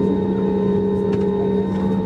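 Steady drone of an airliner's jet engines heard inside the passenger cabin as the plane taxis, a low rumble with a few constant humming tones held throughout.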